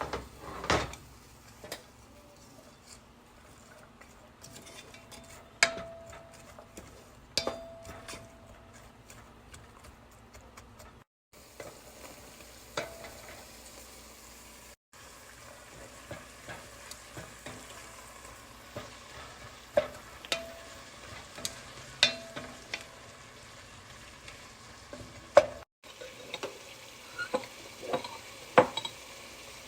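Food frying in a pan with a faint steady sizzle, while a utensil stirs it and knocks and clinks against the pan every second or two, some knocks ringing briefly.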